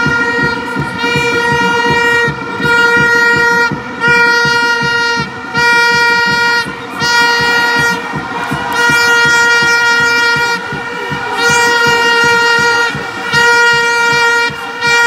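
A handheld horn blown over and over at one steady pitch, each blast about a second long with short gaps between, over a packed crowd cheering. The cheering swells with screaming near the middle, while runners race past.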